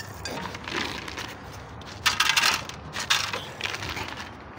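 Dry kibble rattling as it is poured from a plastic jar into a food bowl, in several bursts of many small clicks, the loudest about two seconds in.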